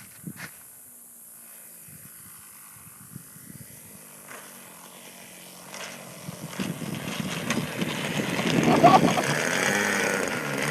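Two-stroke engine of an RC model plane in flight. It is faint at first, grows loud from about six seconds in and is loudest around nine seconds, with its pitch swinging up and down near the end.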